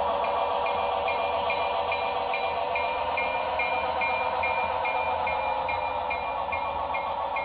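HO-scale model passenger cars rolling past on the track, with a bell ringing steadily about two and a half times a second.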